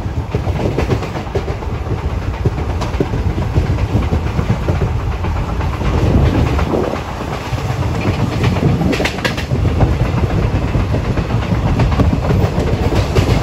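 Dehradun–Okha Uttaranchal Express passenger train running at speed, heard from inside the coach: a loud, steady rolling rumble of wheels on rails, with a few sharp clicks about nine seconds in.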